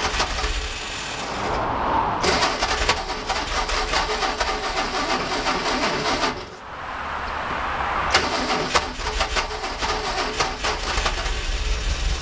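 Starter motor cranking the 1952 Fordson E83W's four-cylinder side-valve engine in two bursts of about four seconds each, with a short pause between, as the owners try to start it after years standing.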